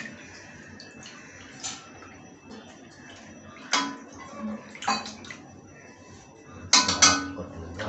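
Hands washing raw rohu fish pieces in water in a steel pot: water sloshing and splashing, with a few sharp splashes or knocks against the pot, two close together near the end being the loudest.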